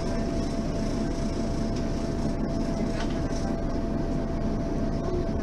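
Mercedes-Benz Citaro Facelift city bus running at a steady pace: an even drone of engine and drivetrain with a constant whine held on one pitch.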